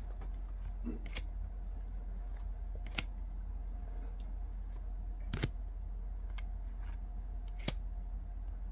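Baseball trading cards being flicked one at a time off a hand-held stack, each card giving a short, sharp snap, about five of them at uneven intervals, over a steady low hum.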